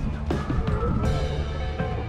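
Music with a steady drum beat and held instrumental tones.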